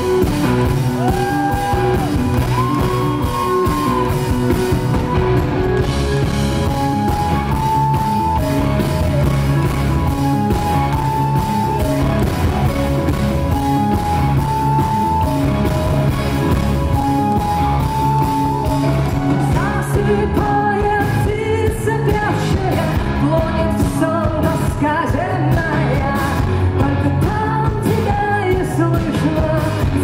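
Live rock band playing in a hall: a repeating melodic riff over a steady beat, then a woman's voice singing with the band from about twenty seconds in.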